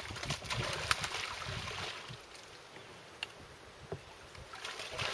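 Shallow water splashing and sloshing at the river's edge, louder in the first two seconds and again near the end, with a few light knocks.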